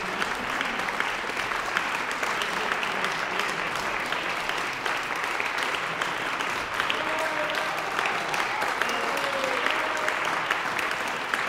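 Audience applauding steadily, a dense patter of many hands clapping, with a few voices calling out from the crowd partway through.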